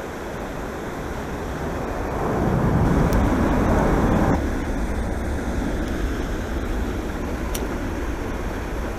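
Steady rush of water pouring from a culvert outfall into a creek. A louder rushing swell builds about two seconds in and cuts off suddenly about two seconds later.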